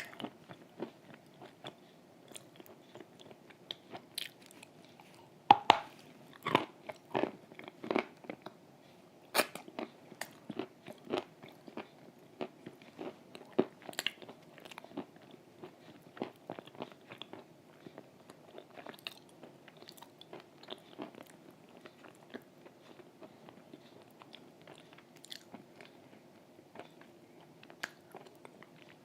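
A person biting and chewing cream-soaked chalk up close, making short crunches and clicks. The crunches come thick and fast in the first half and thin out to occasional chews near the end.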